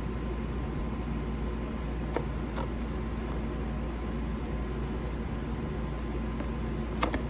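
A steady low mechanical hum of room noise, like a fan or air conditioning. A few soft clicks of the box and packaging being handled come about two seconds in and again near the end.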